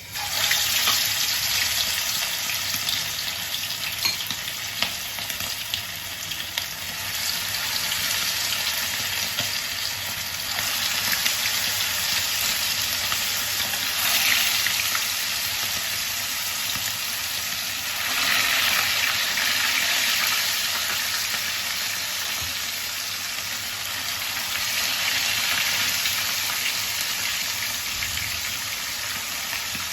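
Marinated chicken pieces sizzling as they half-fry in hot oil, the sizzle starting suddenly as they go into the pan and swelling a few times.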